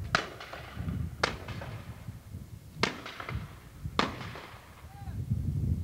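Flintlock muskets fired by a kneeling line of soldiers in a ragged volley: four separate sharp shots, the first three about a second or more apart, each with a short echoing tail.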